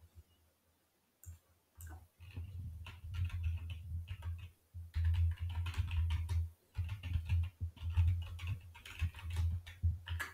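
Typing on a computer keyboard: a quick run of key clicks that starts about a second in and goes on with short pauses, each keystroke carrying a dull low thump.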